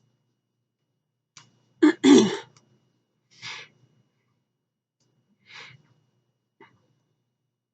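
A person's sudden loud vocal burst about two seconds in, a falling, throaty outburst like a sneeze or cough, followed by two softer breathy exhales.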